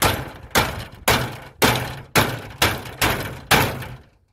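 A hammer striking a stuck fitting on the top edge of an upright metal-edged panel: eight sharp blows, about two a second, each ringing briefly.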